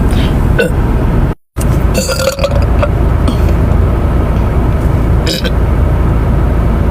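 A person burping once, about two seconds in, over a steady low rumble. A brief silent gap comes just before the burp.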